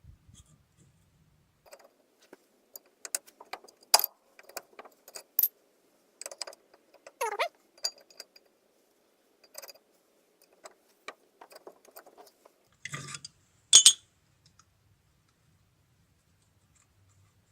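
Irregular light metallic clinks and taps of drum-brake parts and hand tools being handled, with a short falling squeak about seven seconds in and a louder clatter near the end.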